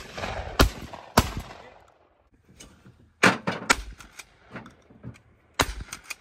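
Shotguns firing at aerial targets, about six shots in quick pairs: two in the first second and a half, two a little past three seconds, and two near the end, the early shots trailing a short echo.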